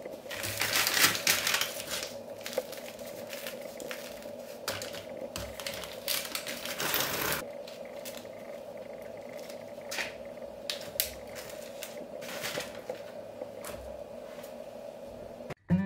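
Crisp crust of freshly baked baguettes crackling and crunching as they are handled and broken apart by hand, over a faint steady hum. The crackling is loudest about a second in and again around six to seven seconds in, with lighter crackles between and after.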